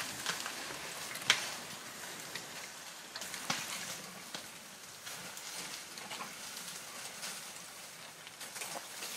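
Dry brush crackling and snapping as African elephants browse, tearing leaves and breaking twigs, with a sharp snap about a second in and another at about three and a half seconds.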